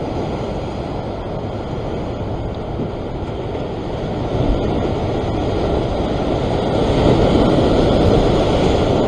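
Rough sea surging and washing against a rock ledge: a steady rush that swells louder in the second half, with wind on the microphone.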